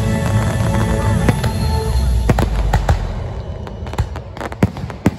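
Fireworks display: many sharp bangs and crackles over music, the music fading out about halfway through and leaving separate bangs.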